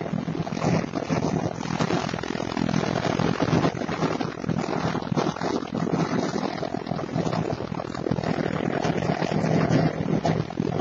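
A car cruising at highway speed, heard from the cabin: a steady low engine drone under continuous road and wind noise.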